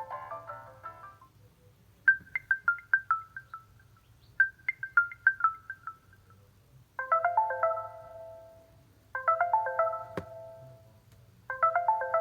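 Nokia Lumia 520 ringtones and message tones played one after another. A melodic ringtone fades out, then a short run of quick notes sounds twice, and then a chiming tone pattern repeats three times about two seconds apart. A single sharp click comes about ten seconds in.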